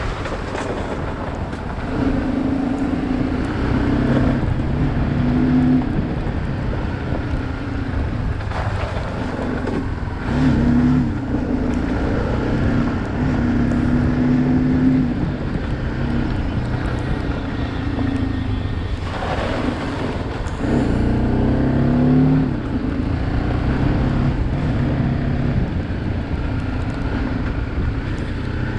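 Motorcycle engine running under way, its pitch mostly steady with a few dips and rises as the throttle changes, under steady wind noise on the microphone.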